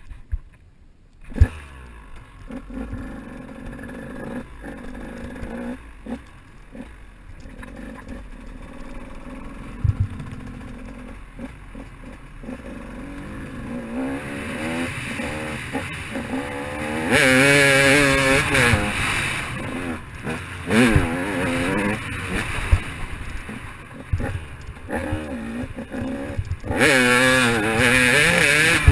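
KTM 200 XC-W two-stroke dirt bike engine heard from the rider's helmet, with a sharp knock about a second in, then running at low revs. From about halfway it revs up and down hard through the gears, loudest in two full-throttle stretches near the middle and at the end.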